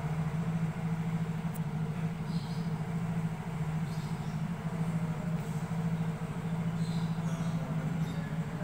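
Steady low mechanical hum from a running machine, unchanging throughout, with a few faint high chirps here and there.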